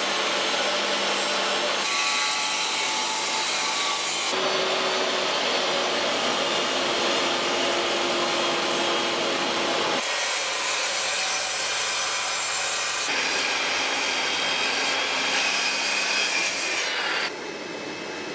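Carbide-tipped circular saw blades cutting hardwood: a table saw rips oak with a Hans & Baümier blade, then, from about ten seconds in, a miter saw crosscuts with an Axcaliber CutPro blade, which has a harsher, higher-pitched sound. The sound drops to a quieter cut shortly before the end.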